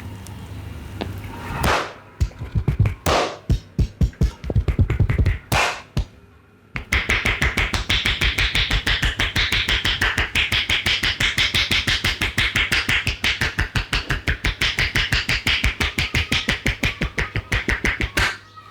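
Hand tapping of a head massage: a few slower, uneven slaps, then after a short pause a long, fast, even run of slaps that stops sharply near the end.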